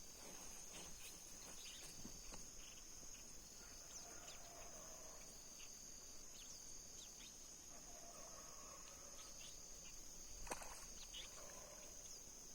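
Quiet outdoor ambience dominated by a steady high-pitched insect chorus of crickets, with faint distant calls and a single sharp click about ten seconds in.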